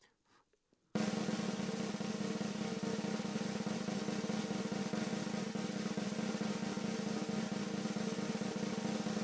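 Snare drum roll, starting abruptly about a second in and held steady at an even level, with a steady low tone underneath.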